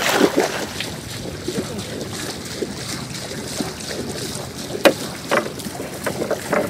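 Steady wind and water noise on the microphone from a small boat on open floodwater, with one sharp knock nearly five seconds in and a few lighter knocks after it.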